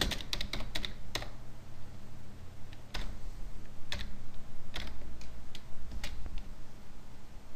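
Computer keyboard being typed on: a quick run of keystrokes in the first second, then scattered single key presses with pauses between them.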